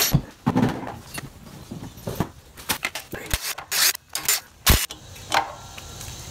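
A cordless impact driver is run in short spurts to back out 10 mm bolts from a mini bike's clutch mounting plate. Irregular metal clicks and clinks from the bolts and tool are mixed in, the sharpest about four to five seconds in.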